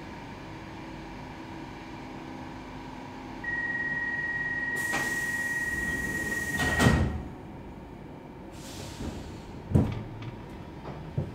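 Stockholm Metro C14 train's door-closing sequence while standing at a platform: a steady high warning tone sounds for about three seconds. Partway through it the pneumatic sliding doors hiss, then shut with a loud bang. Two single thuds follow a few seconds later.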